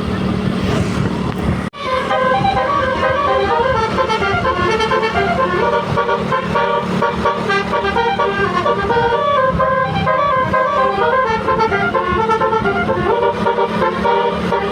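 Tour bus 'telolet basuri' multi-tone musical horn playing a fast tune of quick stepped notes over a steady low hum, starting after a brief cut-out about two seconds in.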